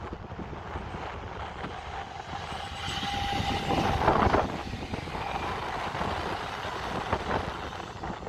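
Škoda 16Ev electric multiple unit passing close by, its wheels rolling on the rails. It gets louder about three seconds in as it draws level, with a brief steady whine.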